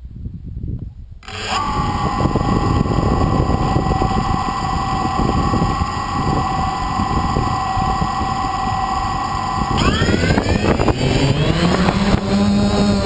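Quadcopter's electric motors and propellers spinning up suddenly about a second in and whirring steadily at one pitch, heard up close from a camera on the craft. About ten seconds in the whine rises sharply in pitch as the throttle is opened for take-off.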